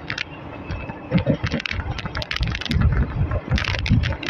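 Indian Railways ICF passenger coach on the move: wheels and coach body clattering on the track, with rapid, irregular clicks and rattles over a low rumble.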